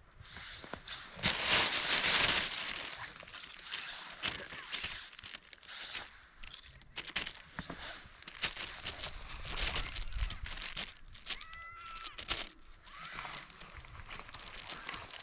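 Rustling and crinkling handling noise with many scattered clicks, loudest in a burst between about one and two and a half seconds in. A short, high, bending tone sounds about eleven and a half seconds in.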